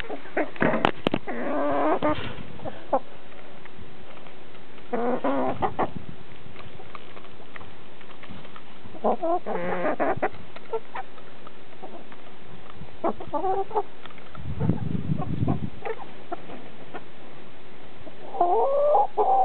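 Hens clucking in short bouts every few seconds, with a few sharp clicks about a second in and a brief low rumble about three-quarters of the way through.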